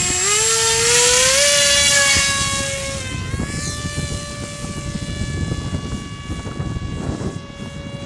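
Electric motor and propeller of a foam RC T-50 jet at full throttle. It starts as a whine rising in pitch over the first second and a half of the hand launch, then holds one steady pitch and fades slowly as the plane flies away. It is running on a 3-cell battery, which the pilot finds underpowered for this prop.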